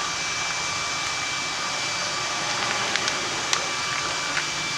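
Steady machine whir with a faint high whine, like a running room fan or air conditioner. A few faint clicks and taps sound from about three seconds in.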